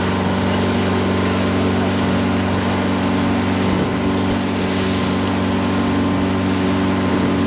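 Motorboat engine running at a steady pitch while under way, over constant wind and water noise.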